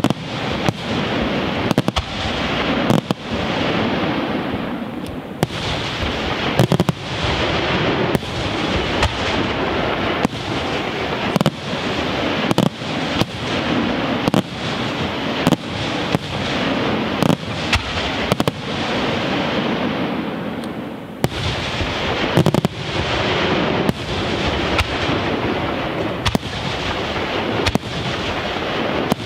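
Aerial fireworks display: a rapid run of shell bursts, about one or two sharp bangs a second, with echoes filling the gaps between them.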